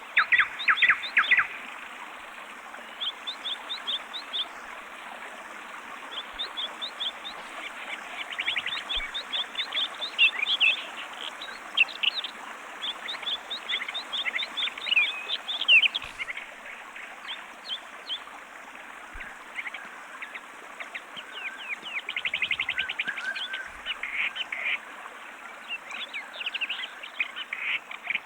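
Birdsong ambience sound effect: many small birds chirping and trilling in quick, scattered bursts over a steady background hiss.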